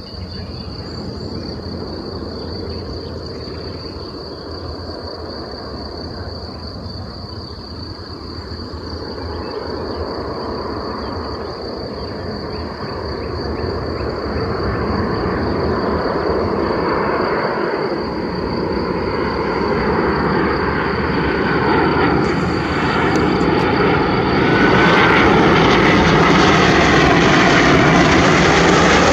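Jet engines of a Boeing 737-800 airliner approaching to land, a rushing roar that grows steadily louder and brighter as the aircraft comes closer.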